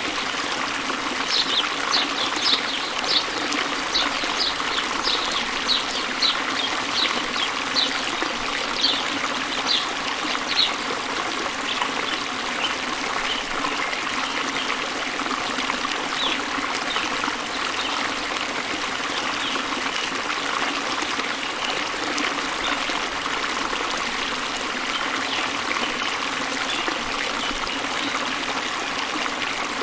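Steady rush and trickle of a small waterfall. A bird repeats short high chirps, about two a second, for the first ten seconds or so, then calls only now and then and more faintly.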